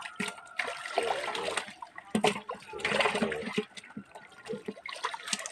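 Water splashing from fish thrashing in a hauled-in drag net and hands working through the catch in shallow pond water, with two bursts of splashing about one and three seconds in.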